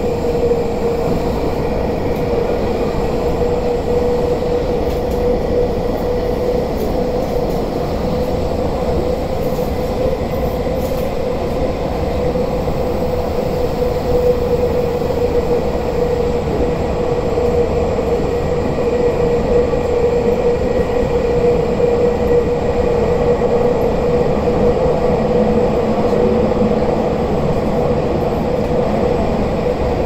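Tokyu 5050 series subway train running at steady speed through a tunnel, heard from inside the car. A constant rumble of wheels and running gear carries a steady whine that holds its pitch throughout.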